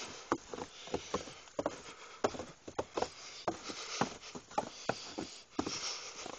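Footsteps crunching through fresh snow: a quick, irregular run of short crunches, several a second, over a faint hiss.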